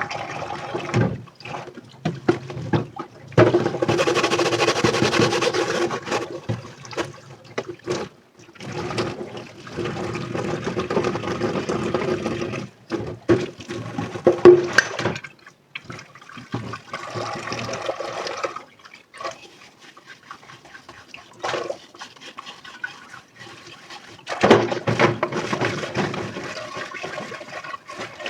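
Tap water running into a kitchen sink in several spells of a few seconds each, with clinks and knocks of dishes being handled and rinsed in between.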